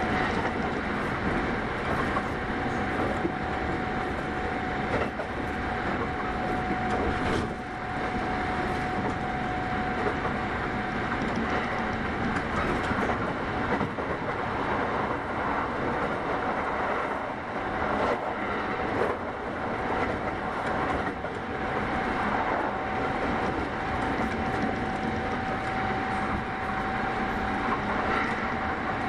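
Kintetsu 8810 series electric train running: a steady rumble of wheels on rail with a faint steady whine that fades in the middle and comes back, and a few brief knocks.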